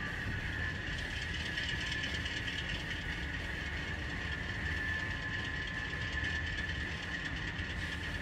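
Model diesel locomotive's ESU LokSound sound decoder playing its engine startup cycle, the diesel engine sound running steadily at idle through the locomotive's small onboard speaker.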